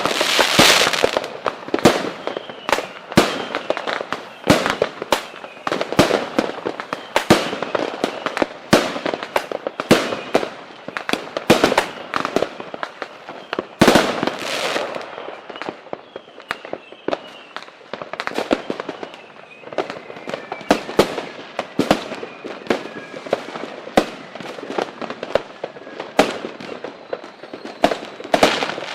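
Fireworks and firecrackers going off in a dense, irregular barrage of sharp bangs and pops, with faint whistling tones gliding in now and then.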